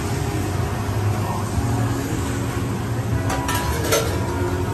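A steady low mechanical hum, with a few short clicks about three and a half seconds in.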